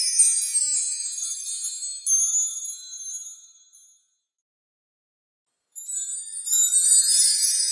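High tinkling chimes and bells, with no low notes. They fade out about four seconds in, drop to complete silence for under two seconds, and start again.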